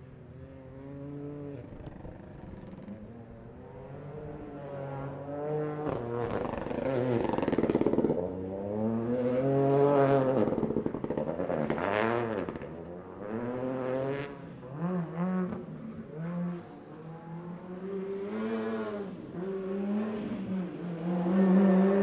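Toyota GR Yaris rally cars at full throttle on a loose dirt surface, the engine note rising and falling again and again through gear changes and lifts, with short crackles in between.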